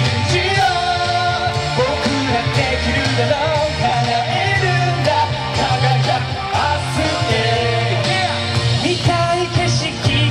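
Male vocalists singing an upbeat Japanese pop-rock song live into handheld microphones over loud backing music, trading lines between singers.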